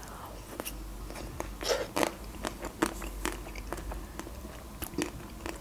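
Close-up mouth sounds of biting into and chewing a chocolate-coated Magnum ice cream bar: the hard chocolate shell cracks in a series of short, sharp, scattered crunches.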